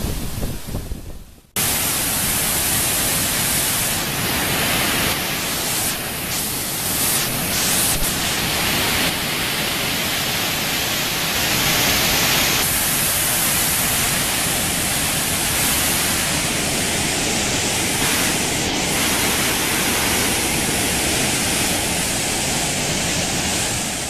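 Waterfall rushing steadily into a rocky pool, an even hiss spread across all pitches. About a second and a half in, the sound briefly drops away, then comes back steady and brighter.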